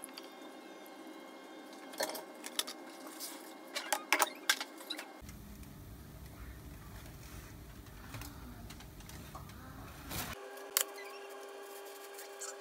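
Cookware handling: scattered sharp clicks and knocks of a pot and bowl over a faint steady hum, with a low rumble from about five to ten seconds in.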